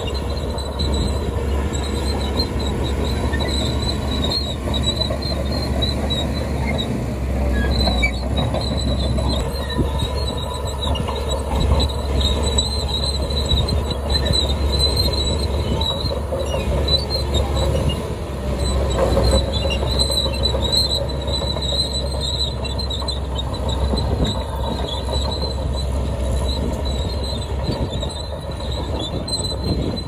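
Crawler bulldozers' diesel engines running steadily under load while pushing dirt and rock, with the steel tracks squealing. The first machine is a Shantui; after a cut it is a Caterpillar D3K2.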